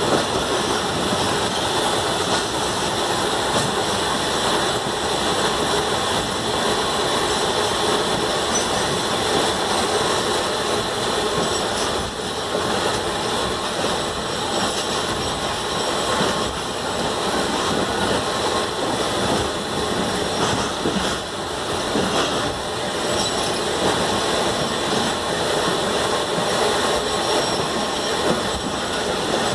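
Fareed Express passenger train running along the track, heard from aboard a coach: a steady noise of wheels on rails that holds at one level throughout.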